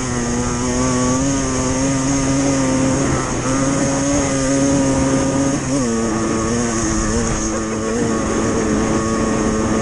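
Four-cylinder Suzuki GSX 400 engine of a home-built dirt bike running under load. The engine note holds steady, then drops sharply about six seconds in and settles at a lower pitch.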